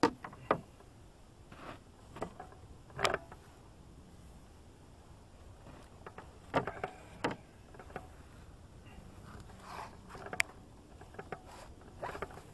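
Scattered knocks and clunks from inside a metal canoe, about a dozen at uneven intervals, as the people in it shift about and handle paddles against the hull, over a faint steady background.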